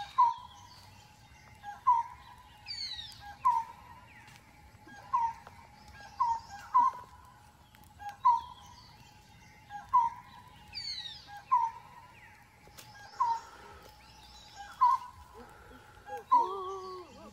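Animal calls: a short call repeated steadily about once every 0.8 seconds, with higher chirps sliding downward every few seconds over a faint steady whine. Near the end a longer call bends up and down in pitch.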